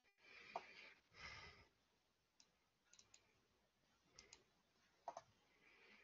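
Near silence, broken by two short breathy rushes of noise in the first second and a half, then a handful of faint, sharp clicks, some in quick pairs.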